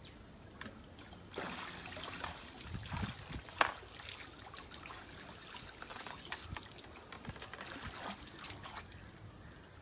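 River water splashing and trickling as an Asian elephant moves its trunk in shallow water, in scattered small splashes and drips, with one sharper splash about three and a half seconds in.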